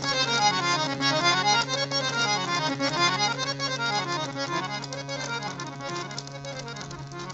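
Harmonium played in quick rising and falling scale runs on the natural (shuddh) notes sa re ga ma pa dha ni, over a steady held low note. The playing grows softer toward the end.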